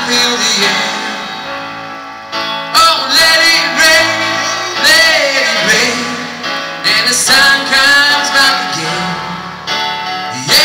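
A live song performance: digital piano chords under a wavering lead melody carried on a hand-held microphone, in phrases that swell and fade every couple of seconds.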